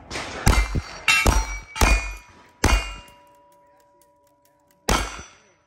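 Single-action revolver fired five times at steel targets: four shots about 0.7 s apart, then a last one after a two-second pause. Each shot is followed by the steel target ringing on a clear tone.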